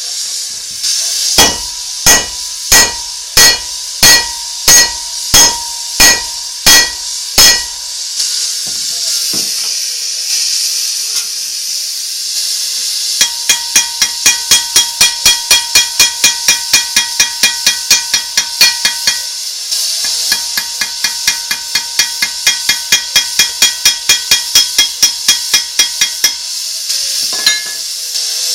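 Hammer striking metal that rings after each blow: about ten slow, heavy blows, then two long runs of quicker, lighter blows at about four a second. A steady hiss runs underneath.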